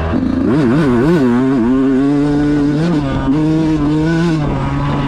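Dirt bike engine revving through rough going. The throttle is blipped quickly several times in the first second or so, then held at higher revs with a brief dip about three seconds in, before the revs fall near the end.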